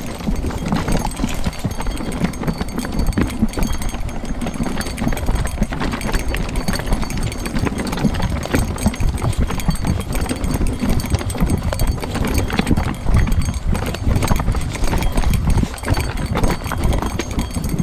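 Mountain bike descending a rocky trail: the tyres roll and rattle over loose stones in a steady, irregular clatter of knocks, with the bike itself rattling over the bumps.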